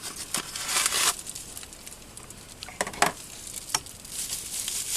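Rustling and scraping as knife packaging is handled and opened by hand, with a few sharp clicks about three seconds in.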